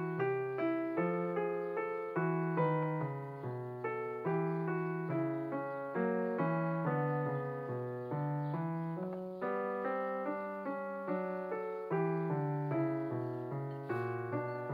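Background piano music: an even run of notes, about two a second, each struck and fading.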